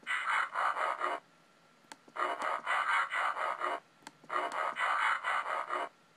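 A Transformers web viewer's transformation sound effect played through laptop speakers: a chattering mechanical burst of about a second and a half, heard three times, each starting just after a faint mouse click as the model switches between robot and vehicle mode.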